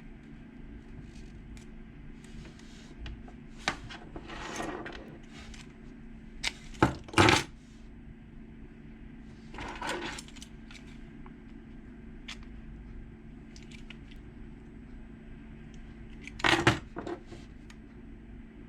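Small metal lock parts clicking and clinking against a hard surface as the wafers of a car lock cylinder are handled: a single tap, then three sharp clicks in quick succession a little before the middle, and another cluster near the end, with softer scraping in between, over a steady low hum.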